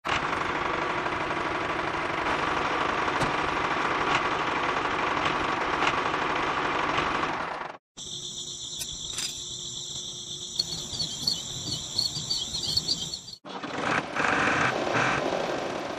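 Small electric motor of a toy tractor whirring steadily for about eight seconds. After a cut, insects trill shrilly and steadily for about five seconds. The whirring returns near the end.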